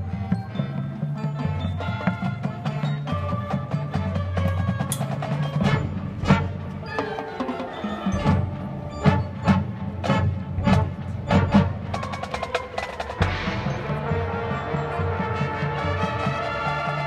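Marching band playing its field show: brass chords over the front ensemble's mallet percussion, with a run of sharp percussion hits in the middle before sustained chords return.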